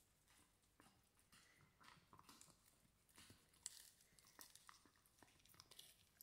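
Dog chewing and gnawing a long dried chew stick: faint, irregular crunching and clicking of teeth on the hard chew.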